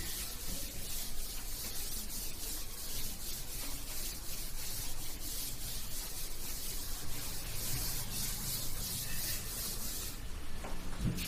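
A blackboard eraser rubbing chalk off a chalkboard in quick repeated strokes, a scratchy hiss that stops about ten seconds in.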